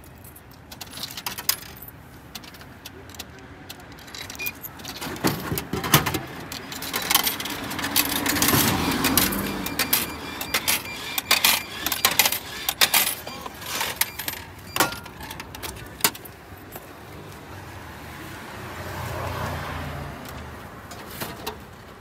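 A Japanese drinks vending machine in use: coins clinking, button and mechanism clicks, and a louder stretch of clatter as a can of coffee comes down into the delivery tray. The tray flap is then handled and the can taken out, with scattered knocks throughout.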